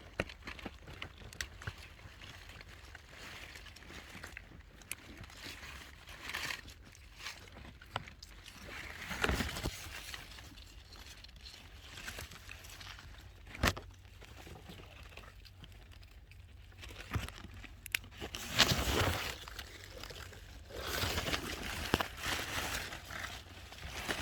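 Rustling and crunching of strawberry plants and leaves being handled during picking, with scattered sharp clicks and a few louder rustling bursts.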